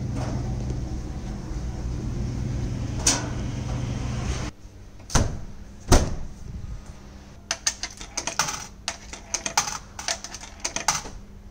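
A steady machine hum that cuts off suddenly after about four and a half seconds. Then the glass door of a coin-operated laundromat dryer is shut with a loud knock about six seconds in, followed by a quick run of clicks and clinks as 10-baht coins are fed into its coin slot.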